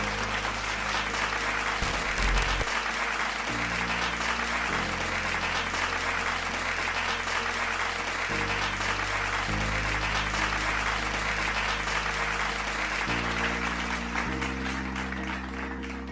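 Sustained applause from many people clapping, over background music with slow, held chords.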